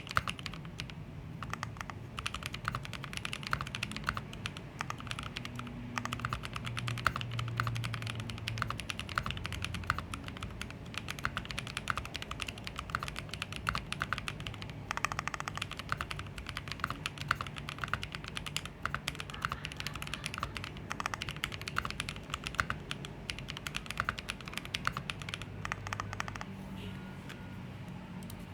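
Fast, continuous typing on a custom 60% mechanical keyboard (Mekanisk Fjell) with lubed Gazzew Boba U4T tactile switches and IFK keycaps: a dense, steady patter of key strokes.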